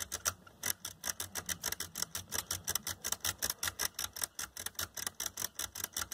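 Detented rotary wafer switch (the Nikko NR-515 receiver's speaker selector) clicking rapidly through its positions, about eight clicks a second. It is being turned back and forth by a knob to work contact cleaner into its contacts.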